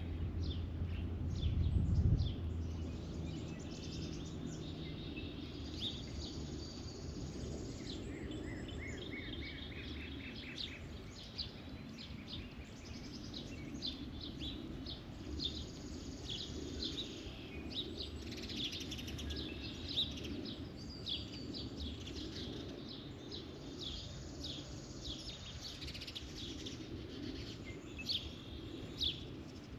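Songbirds chirping and singing, with many short notes and a quick trill of repeated notes about eight seconds in, over a steady low rumble of background noise. A low thump sounds about two seconds in.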